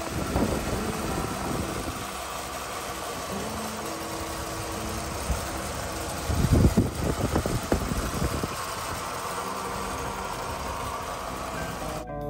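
1986 Ford F-150 bullnose V8 idling steadily with the hood up. A brief burst of low thumps comes about six and a half seconds in.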